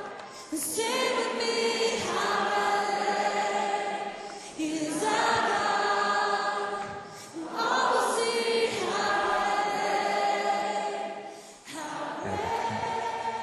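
Voices singing together like a choir in slow, long-held phrases of about three to four seconds each, with short breaks between the lines.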